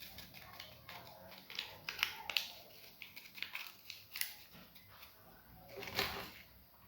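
Faint handling of small baking-powder sachets being opened and emptied into the mixing bowl: light rustling with a few sharp clicks and snips, bunched about two seconds in and again near the end.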